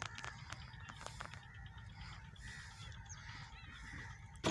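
Faint outdoor ambience: a low wind rumble on the microphone, a few light clicks, and faint bird calls.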